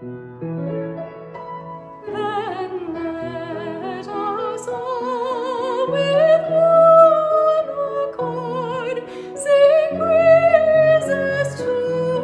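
Classical-style solo singing with wide vibrato over piano accompaniment; the voice enters about two seconds in after a few piano chords.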